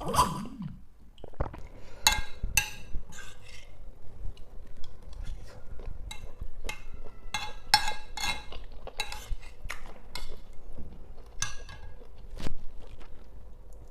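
Metal cutlery clinking and scraping against a plate while eating rice: repeated sharp clinks with a short ring, at uneven intervals.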